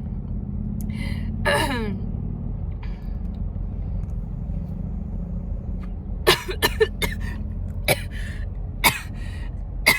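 A woman coughing after a deep vape inhale: a drawn-out vocal sound falling in pitch about a second and a half in, then about five short, sharp coughs in the second half. A steady low hum runs underneath.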